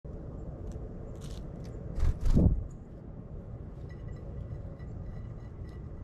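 Steady low outdoor background rumble. About two seconds in there is a loud, short double rustle and thump, and near the end faint high bird chirps.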